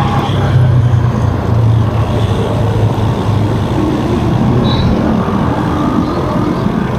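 Wind rumbling on the microphone of a moving bicycle, with road noise from riding along a wet street.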